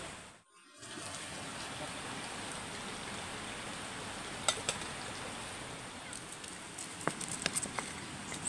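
Small wood fire crackling steadily under a hanging cooking pot. Near the end, a run of sharp knocks as a pestle crushes chilies in a clay mortar.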